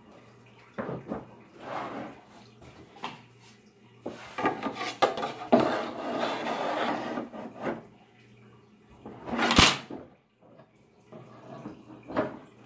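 Handling sounds of a wooden ruler on a wooden easel top: a few seconds of rubbing and scraping, then one sharp knock a little before ten seconds in, with light taps around it.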